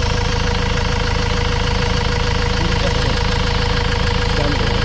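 Ford Transit 2.2 diesel engine idling loudly and steadily, with an even, rapid clatter.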